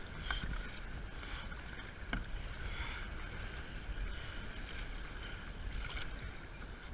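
Kayak paddle strokes dipping and splashing in choppy water, with a few sharper splashes. A steady low rumble of wind on the microphone runs underneath.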